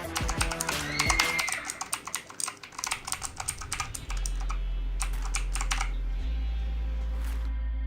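Mechanical gaming keyboard keys being pressed in quick, rapid clicks. The clicking thins out and stops around six seconds in, leaving background music with a steady bass.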